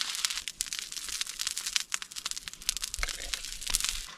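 Cooking fire crackling and sizzling: a dense, steady stream of small sharp pops and ticks over a hiss.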